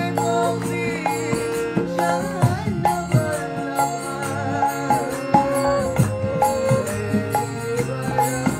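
Devotional kirtan: a woman sings a chant in a bending, held melody over the steady chords of a harmonium, with hand-drum strokes keeping a regular beat.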